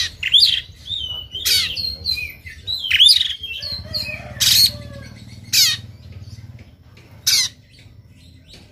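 Oriental magpie-robin singing in a combative mood: quick whistled notes broken by about six loud, harsh rasping notes (the fanciers' 'tembakan', or shots), the last one about seven seconds in.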